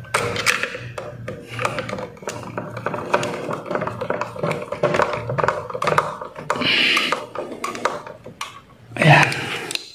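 Screwdriver tightening a wire's terminal screw on a circuit breaker: repeated small metallic clicks and scrapes of the screwdriver and pliers against the breaker lug, with a louder sound about nine seconds in.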